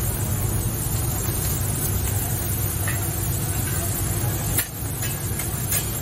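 Steady low rumble of street traffic, with a sharp knock a little past halfway and a fainter one near the end.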